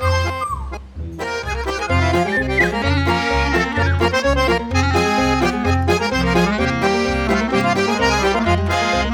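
Background music led by an accordion playing sustained chords, over a bouncing bass that alternates between two low notes about twice a second. The music dips briefly about a second in.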